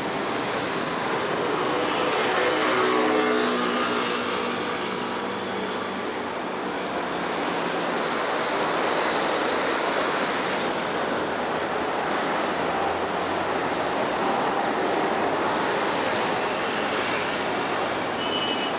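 Steady city road traffic noise beside a tram line, with a motor vehicle passing about two to four seconds in, its engine note falling as it goes by. A couple of short high beeps sound near the end.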